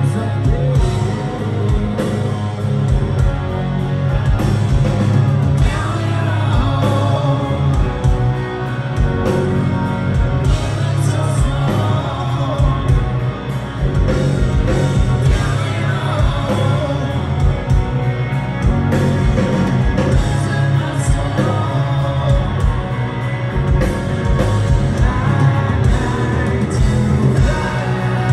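Rock band playing live: distorted electric guitars, bass and drums, with a male lead vocal singing over them.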